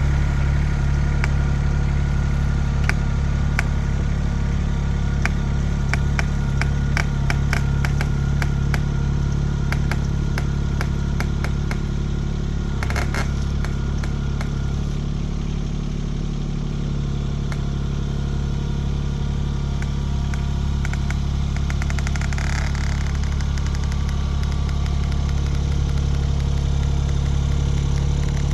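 Kymron XH20D mini-excavator's engine running steadily, with a run of sharp clicks and rattles from about three seconds in to about fourteen seconds in.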